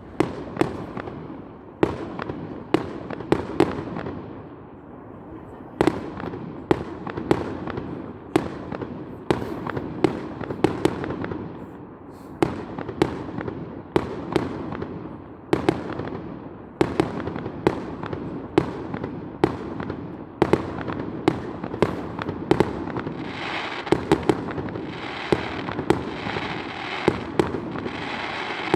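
Fireworks display: shells bursting in steady succession, about one to two bangs a second, each followed by a fading echo. Near the end a dense crackling hiss runs under the bangs.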